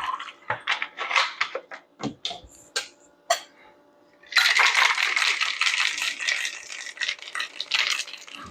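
Ice clinking in a cocktail shaker as it is handled and closed, then shaken hard for about four seconds, a fast steady rattle of ice against the shaker.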